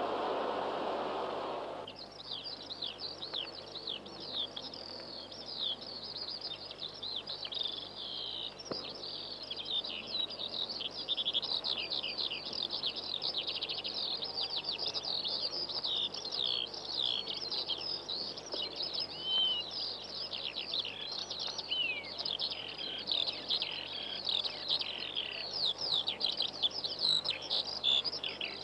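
A flock of small birds chirping all at once, a dense, unbroken chorus of short high calls and quick falling notes. It begins about two seconds in, after a short stretch of steady noise.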